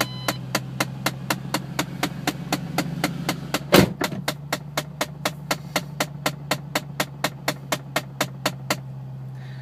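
Faulty HVAC actuator behind the dash vents of a 2007 Ford Mustang GT/CS clicking rapidly and evenly, about five clicks a second, then stopping shortly before the end. The actuator is broken or not working properly, so the vent door doesn't open as it should. There is one louder knock about four seconds in, over a steady low hum.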